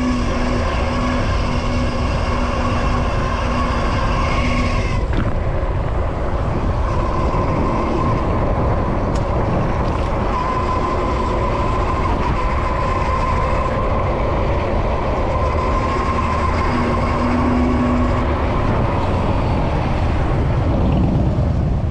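Steady ride noise from a Super73 ZX electric bike moving in city traffic: wind and road rumble with a constant whining tone. A low hum in it drops out about five seconds in and comes back briefly later.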